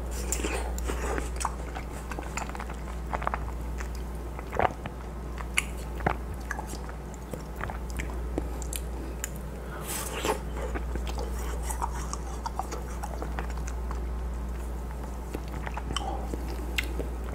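Close-miked biting and chewing of a frozen watermelon-shaped ice pop, with wet mouth clicks and a few sharp bites, the loudest about five seconds in and again about ten seconds in.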